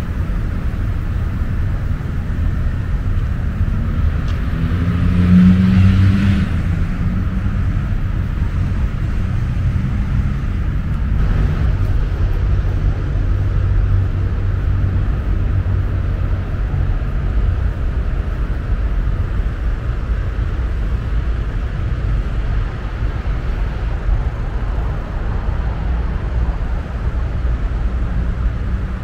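Steady low rumble of distant road traffic. About five seconds in a louder engine note rises in pitch and passes.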